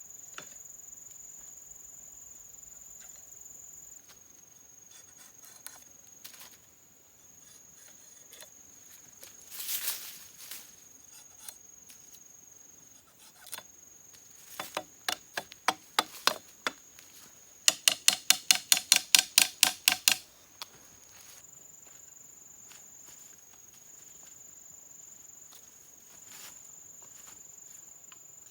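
A steady, high-pitched drone of crickets or similar insects, with a run of sharp knocks in the middle: scattered at first, then about five quick, even strikes a second for some three seconds.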